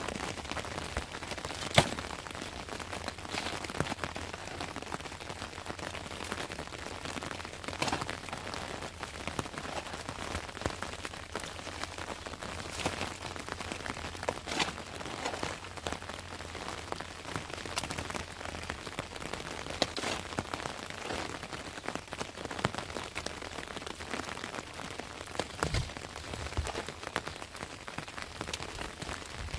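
Shovel digging and scraping into wet, stony soil and tipping it into a wheelbarrow: irregular scrapes and knocks, the sharpest about two seconds in, over a steady background hiss.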